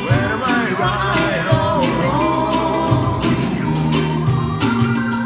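Live band playing a reggae song: acoustic and electric guitars, electric bass, cajón and keyboard, with a wavering melodic line early on and a held note coming in near the end.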